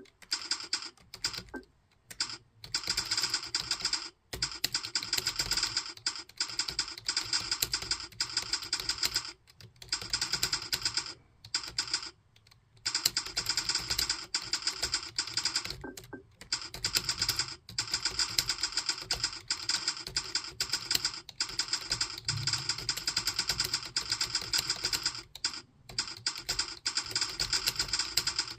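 Fast typing on a computer keyboard: a rapid, continuous run of key clicks broken by several brief pauses.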